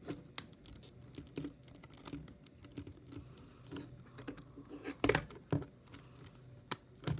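Small plastic clicks and taps as parts of a Masterpiece MPM-11 Ratchet Transformers figure are handled, folded and tabbed into place, with a few louder snaps about five seconds in and near the end.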